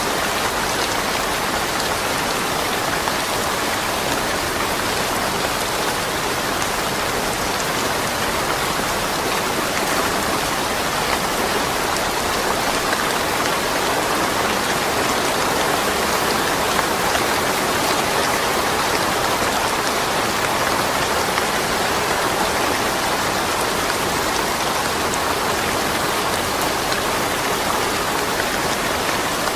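Steady rain falling, an even hiss of drops with faint individual drop ticks and no thunder.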